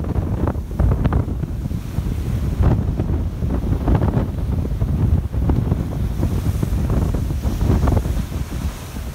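Force 8 gale wind buffeting the microphone in irregular gusts, over the rush of breaking seas and spray along a sailboat's hull.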